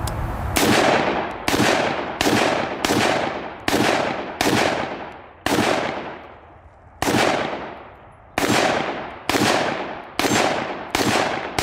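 A 10.5-inch AR pistol in 5.56/.223 firing about a dozen single shots in steady succession, a little under a second apart, with one slightly longer pause midway. Each shot is a sharp crack followed by a long echoing tail.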